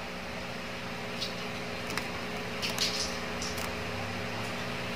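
A steady low electrical hum with a faint hiss. Over it come a few faint, short clicks of fingers pressing the buttons on a small plastic remote control.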